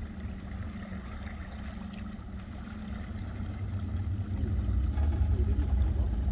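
Small fishing boat's motor running steadily under way, with churning water around the hull, growing louder about four seconds in.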